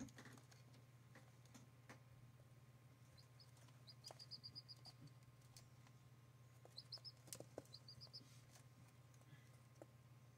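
Turkey poults peeping faintly in two quick runs of short, high chirps, the first about three seconds in and the second about seven seconds in. Scattered light clicks sound between them, over a steady low hum.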